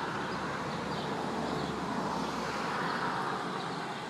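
Steady outdoor background noise, an even hiss and hum with no distinct events, swelling slightly past the middle and easing off near the end.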